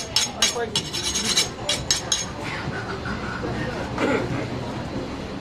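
A steel butcher's knife scraped rapidly against a second blade, honing its edge in quick metallic strokes of about five a second. The strokes stop about two seconds in, leaving market voices and bustle.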